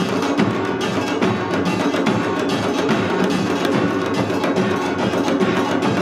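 Utdari-style samul nori ensemble playing: janggu hourglass drums and buk barrel drums beat a dense, driving rhythm together with the kkwaenggwari and jing gongs.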